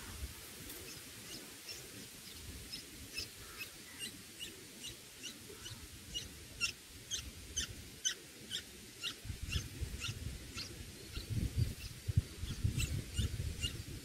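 Red-whiskered bulbul nestlings begging: a steady series of thin, high chirps, about two a second. A low rumbling noise joins from about nine seconds in.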